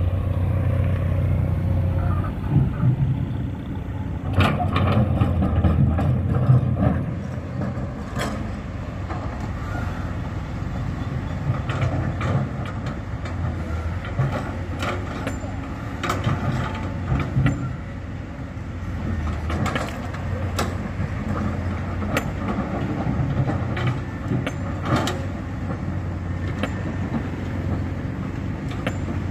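Hydraulic excavator's diesel engine running steadily, louder for a few seconds near the start, with repeated sharp knocks of stone on stone or metal scattered throughout.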